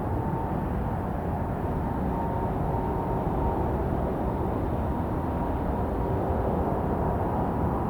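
Jet airliner engines running steadily, a low rumble with a faint high whine, holding level with no rise or fall.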